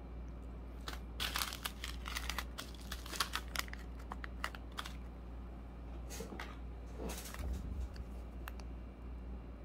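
Plastic packaging (small zip bags and a clear case of nail parts) crinkling as it is handled, in bouts heaviest in the first half, then a few more about six seconds in, over a steady low hum.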